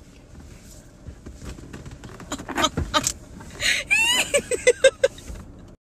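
A young woman laughing: a high rising squeal, then about five quick 'ha' bursts. Before it come scattered knocks and rustling of people shifting in a car seat. The sound cuts off suddenly near the end.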